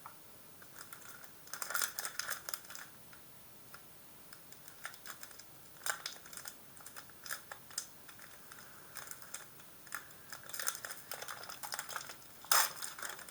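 Pokémon trading cards being handled and flicked through by hand: runs of light clicks and snaps, in several bunches, the loudest near the end.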